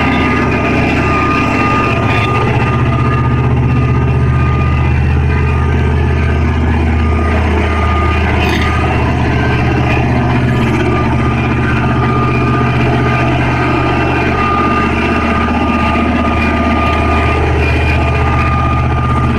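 Heavy diesel engine running steadily at a constant speed, a low hum with a thin steady whine above it.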